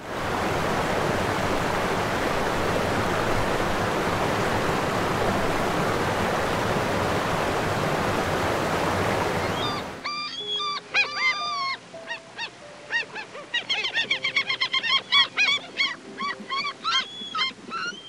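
A steady rushing noise runs for about ten seconds and then cuts off suddenly. After it, a flock of waterfowl calls repeatedly: many short honking calls overlapping, growing busier toward the end, over soft piano notes.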